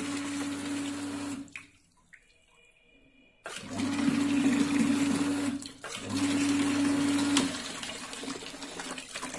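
Water rushing out of a hand-held toilet fill valve into a tank, with a steady low hum running alongside it. The flow stops about a second and a half in, comes back suddenly some two seconds later, breaks off once more briefly, and eases to a lighter trickle near the end.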